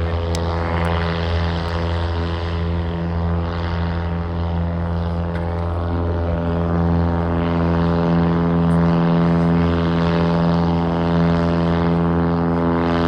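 Cessna floatplane's piston engine and propeller running steadily at high power during a take-off run on water, getting slightly louder about halfway through.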